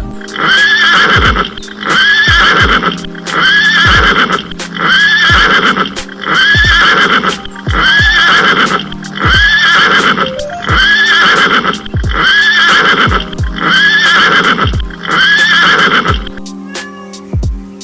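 A horse's whinny repeated a dozen times at an even beat, about every second and a third, over background music. The call stops about 16 seconds in.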